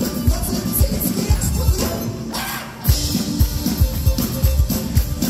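Live band playing on an amplified stage, with drum kit, acoustic guitar and violin over a steady kick-drum beat. About two seconds in the band briefly drops out, then comes back in on a loud hit.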